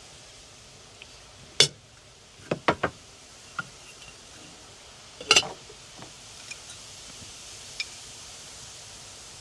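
Sharp clinks and knocks of small hard objects being handled: a single knock, a quick run of three, then a louder double knock, with fainter taps after, over a steady background hiss.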